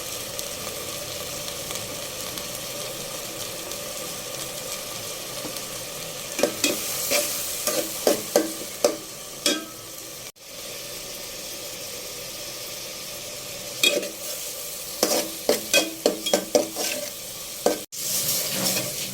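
Pointed gourd pieces frying in oil in a pan with a steady sizzle, while a spatula stirs them, scraping and clicking against the pan in two runs of quick strokes, midway and again later. The sound cuts off abruptly twice.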